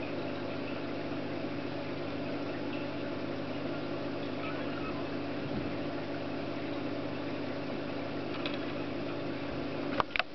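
Steady hum of a small cooling fan with a few steady low tones in it. Two sharp clicks about ten seconds in, near the end.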